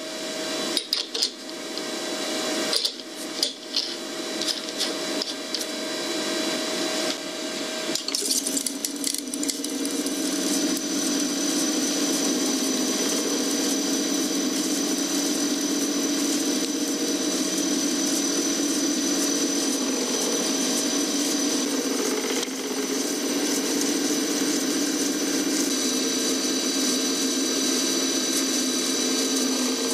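CNC coil winding machine spinning a transformer bobbin as it lays on copper wire. A few clicks and knocks come first, then the whir builds over the first ten seconds or so and settles into a steady run with a high whine over it.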